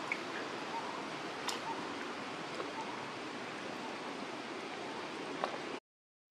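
Steady rush of outdoor water with a few light splashes and clicks as a small monkey moves in the shallows. The sound cuts off suddenly to silence shortly before the end.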